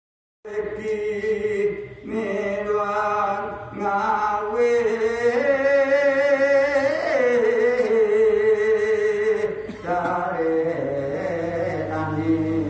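A man chanting Javanese macapat verse solo, in long held notes that waver and slide up and down in pitch, pausing briefly for breath a few times.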